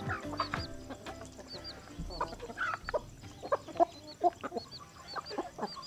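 Chickens clucking, a loose run of short separate calls, with a faint high chirp repeating about every half second.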